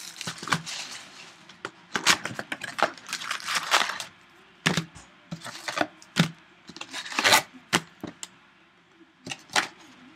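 Trading-card foil packs and cards being handled on a wooden table: irregular rustling and crinkling with light taps and clicks.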